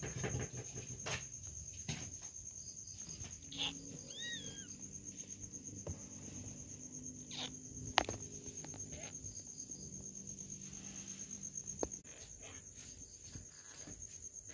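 A cricket trilling steadily in the background, with soft rustles and clicks from newborn kittens nursing against their mother and a single brief high squeak from a kitten about four seconds in.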